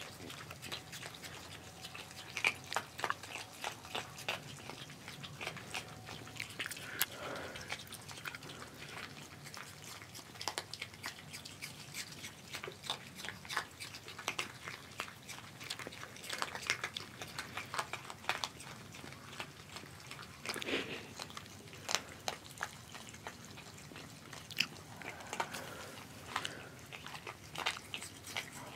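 Several opossums chewing and crunching dry kibble from a shared dish: an irregular run of crisp bites and clicks.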